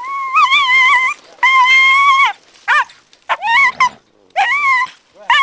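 Hunting dog yelping in a string of high-pitched, wavering cries, about six in a row, the first two drawn out for about a second each. The cries are those of a dog caught in a fight with a pine or stone marten that grips it by the nose.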